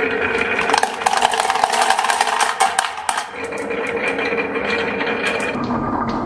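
Marbles rolling and clacking along a wooden HABA marble-run track, a rapid clatter of small wooden knocks, over a steady whir from a small toy motor that drops out for a few seconds in the middle.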